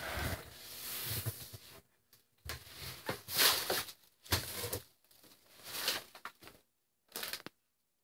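Rustling and handling noise from a handheld camera being carried around, in irregular short bursts with silent gaps between them.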